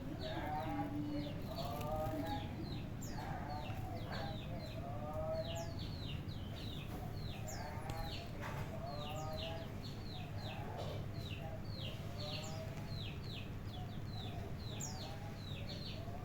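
Chickens clucking in short repeated runs of calls, with a small bird giving quick, high, falling chirps over and over, above a low steady background rumble.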